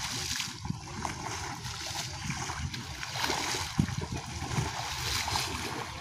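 Several people wading through shallow water, their legs splashing unevenly with each stride.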